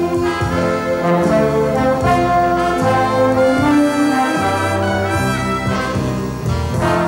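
Large dance-band orchestra playing, with the brass section, trombones to the fore, sounding held chords that change every second or so over a moving bass line.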